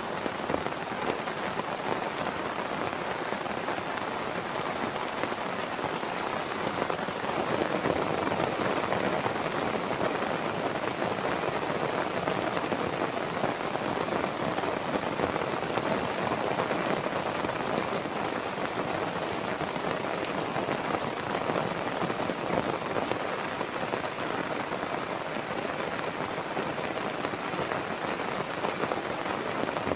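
Heavy rain falling steadily, a dense even wash of drops with no thunder, slightly heavier a few seconds in.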